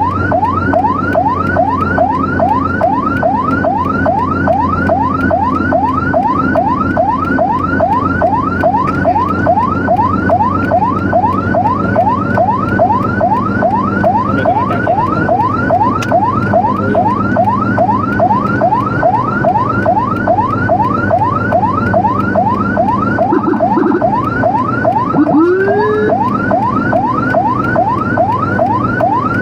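Emergency vehicle siren in a fast yelp, each wail rising quickly and snapping back, about three times a second, over a steady low vehicle hum. About 25 seconds in, a single slower rising whoop from a second siren cuts in briefly.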